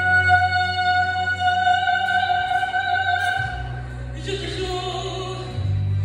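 A woman singing in operatic style through a handheld microphone. She holds one long high note with a slight waver for about three seconds, then moves into a lower phrase about four seconds in.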